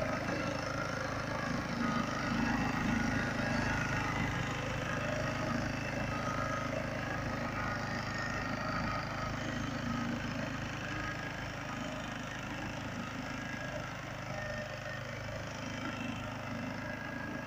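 Two-wheel walk-behind tractor engine running steadily under load, driving its rear rotary tiller through the soil. Slightly louder about two to four seconds in.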